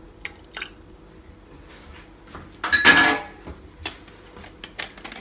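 Light clinks of a metal teaspoon against a saucepan, with one louder metallic clatter with a short ring about three seconds in, then a few soft ticks.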